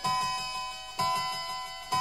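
Instrumental music, the opening bars before a song's singing begins: a ringing chord struck about once a second and left to die away, over a quick soft low pulse.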